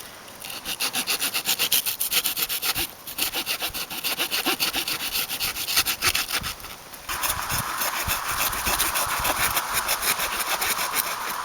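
Saw blade of a Victorinox Swiss Army knife cutting through wood in quick back-and-forth strokes, with two brief pauses, then a steadier rasp.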